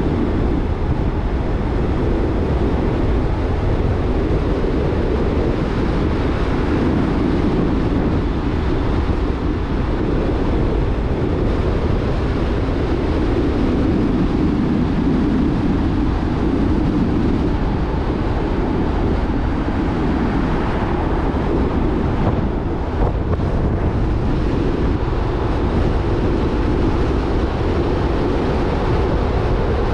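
Jeep Rubicon driving at a steady pace: a constant rumble of road and wind noise.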